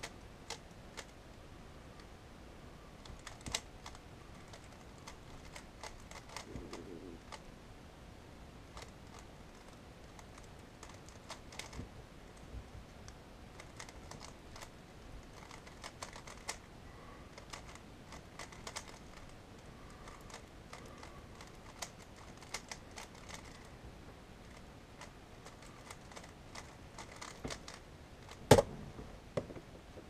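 A 3x3 Rubik's Cube being turned fast in a speed-solve: a long run of quick plastic clicks and clacks from the layers turning. There is one loud knock near the end.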